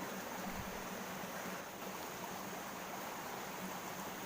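Steady rush of water from a small mountain stream and waterfall, with a faint steady low hum beneath it.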